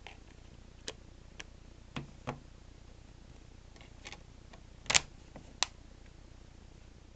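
Scattered small sharp clicks and taps of a budget Alcatel smartphone's plastic parts being handled and fitted back together, at an irregular pace; the loudest is a close pair of clicks about five seconds in.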